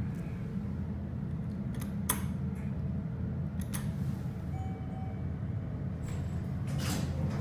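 Steady low hum inside a hydraulic elevator cab as it travels down, with a few short, sharp clicks.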